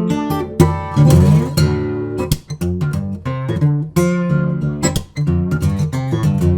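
Lava ME 3 smart acoustic guitar played with picked notes and strums, heard through its built-in effects.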